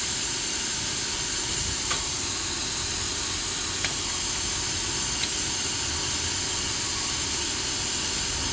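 Steady hiss of background noise, with a few faint light clicks about two, four and five seconds in.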